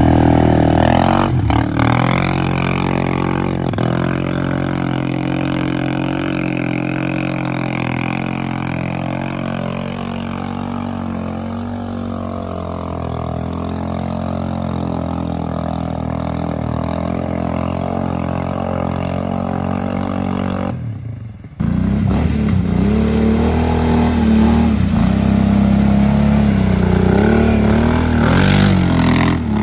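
ATV engines running under load. About two-thirds of the way through the sound cuts abruptly and a louder engine takes over, its pitch wavering up and down as it revs.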